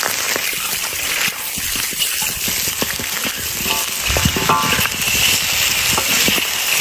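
Chunks of blanched pig trotter sizzling in hot oil and caramelised sugar, stir-fried with a spatula that scrapes and knocks against the pan over a steady hiss.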